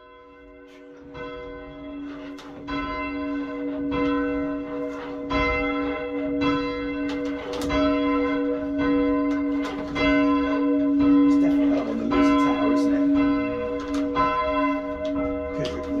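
A single church bell, the 5th of a ring of six cast by Mears & Stainbank at the Whitechapel foundry in 1872, being lowered: it strikes over and over, more than once a second, each blow ringing on into the next. It starts faint and grows louder over the first few seconds.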